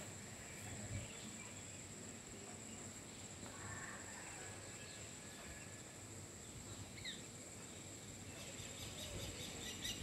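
Faint rural ambience: a steady high-pitched insect trill, with a few faint bird chirps, one short call about seven seconds in.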